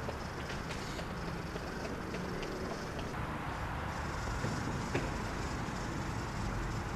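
Steady background ambience: a low rumble with a hiss over it, dotted with a few faint clicks and one sharper tick about five seconds in.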